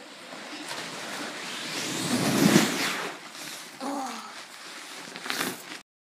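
A sleeping pad with a boy lying on it sliding and bumping down carpeted stairs: a rushing, scraping noise that builds to its loudest about two and a half seconds in. A child's short voice with falling pitch follows about four seconds in, then a couple of knocks, before the sound cuts off suddenly.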